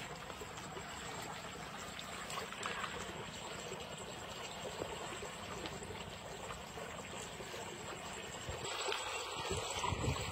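Shallow stream water running and splashing steadily where the fishing line enters the current. A few louder thumps come near the end.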